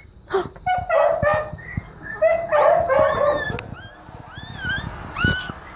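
Newborn pocket beagle puppies squealing and whimpering: a string of short, high-pitched cries that rise and fall in pitch.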